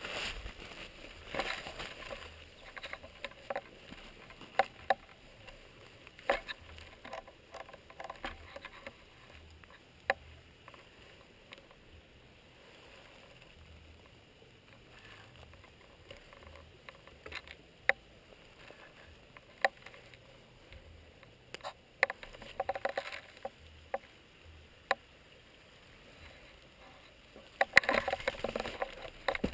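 Rustling of clothing and gear close to the microphone, with scattered sharp clicks and snaps every few seconds and a longer spell of rustling near the end.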